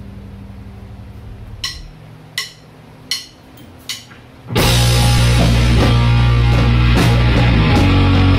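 Low amplifier hum with four evenly spaced drumstick clicks counting in, then the full rock band of electric guitar, bass guitar and drum kit comes in loud about four and a half seconds in and keeps playing.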